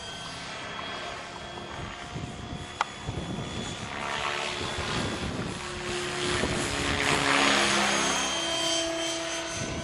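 Electric Swift 16 RC helicopter in flight: the brushless motor's whine and the 550 mm rotor blades' noise, its pitch sliding up and down and growing louder about two-thirds of the way through, with a single sharp tick about three seconds in.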